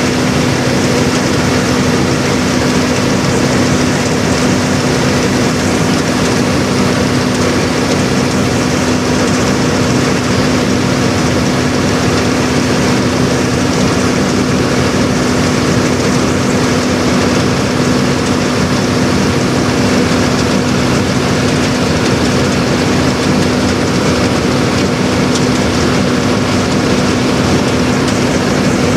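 Engine of a rice-harvesting machine running steadily at constant speed, a loud, unbroken hum with no change in pitch.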